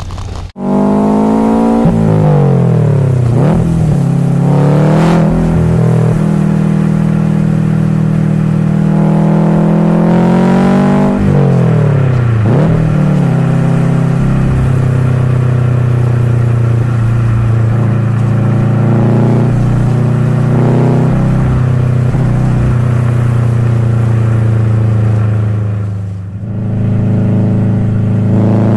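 Subaru WRX STI's turbocharged flat-four boxer engine, heard from the cabin while driving: revs climb and drop sharply several times through manual gear changes, then hold steady under a light cruise, dipping briefly near the end.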